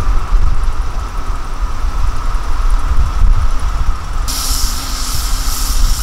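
Loaded Hyundai dump trucks' diesel engines running with a deep rumble. A little after four seconds in comes a loud hiss of air from a truck's air brakes, lasting under two seconds and cutting off sharply.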